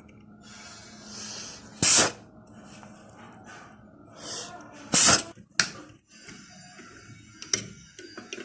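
Two short, loud bursts of rushing air about three seconds apart, each preceded by a softer hiss, with a few sharp clicks, during desoldering work on a circuit board.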